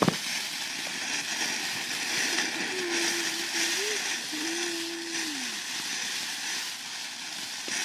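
A lit ground firework burning with a steady hiss, which starts with a sharp click.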